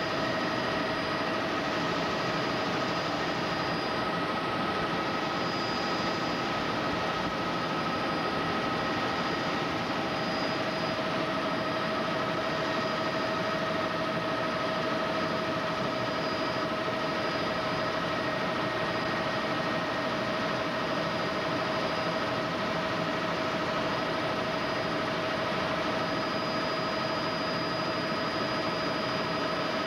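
Tour helicopter in steady flight heard from inside the cabin: a constant drone of engine and rotors with a steady whine running through it.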